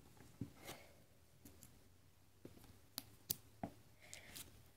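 Near silence with a few faint, short clicks and taps of small things being handled on a tabletop: two in the first second, then three close together about three seconds in.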